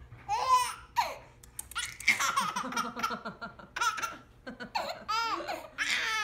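A baby laughing hard in several bouts of high-pitched laughter with short breaks between them.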